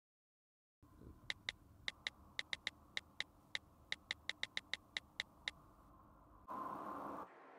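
iPhone on-screen keyboard clicks as a text message is typed: about twenty quick, crisp ticks over roughly four seconds. A short whoosh follows near the end as the message is sent.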